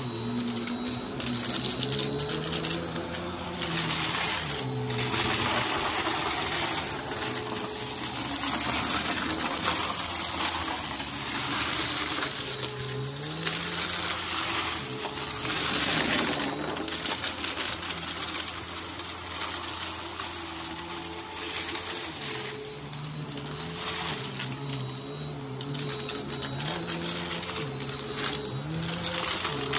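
Bagless upright vacuum cleaner running over a shag rug, sucking up a dry mix of glitter and confetti-like debris with a dense crunching and rattling as the bits hit the nozzle and bin. The motor's hum rises and falls in pitch with the back-and-forth strokes.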